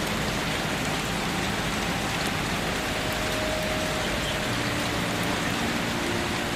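Steady rain falling, an even hiss with fine drop ticks.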